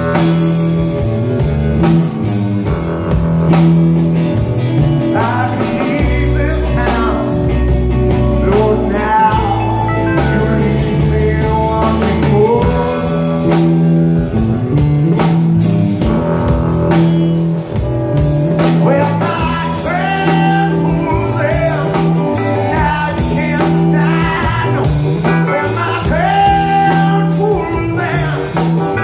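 A live blues-rock band playing: a singer's voice over electric guitars, a drum kit and an electric keyboard.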